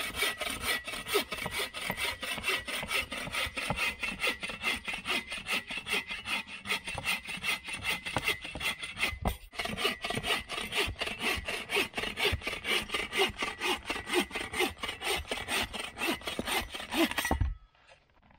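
Hand saw cutting through a dead log for firewood in fast, even back-and-forth strokes, with one brief pause about halfway; the sawing stops near the end.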